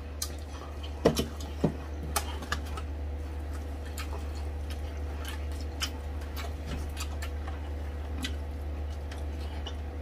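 Close-miked eating sounds: scattered mouth clicks, lip smacks and soft squishes from chewing and picking meat off crispy pata (deep-fried pork knuckle) bones. The loudest clicks come in the first few seconds, over a steady low hum.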